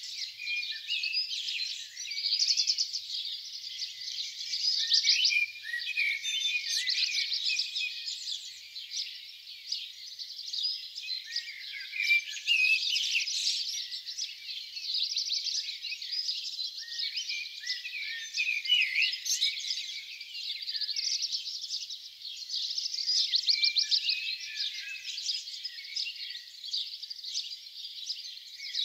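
Spring dawn chorus: many songbirds singing at once, their songs overlapping without a break, with rapid trills returning every few seconds.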